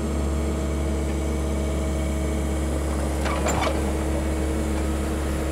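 Diesel engine of a tracked mini excavator running steadily with a low hum while the machine lifts a heavy stone on straps from its bucket. A brief burst of sound a little past halfway.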